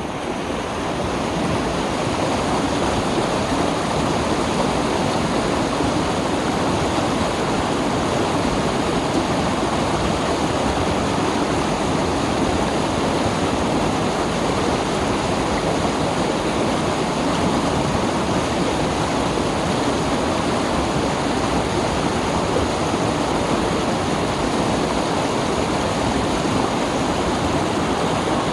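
Mountain valley stream rushing over rocks: a steady, even water noise, fading in at the very start.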